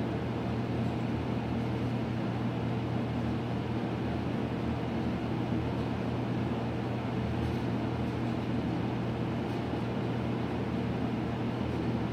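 Sewage pump running: a steady mechanical drone with a strong low hum under an even rushing noise.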